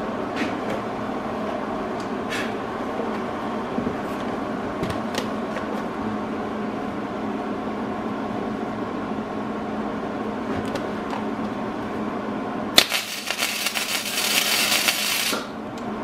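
Steady machine hum with a few light clicks. Then, about three-quarters of the way in, an electric welding arc strikes and crackles for about two and a half seconds before stopping suddenly: a short weld tacking a 3/4-inch steel pipe onto the steel tank.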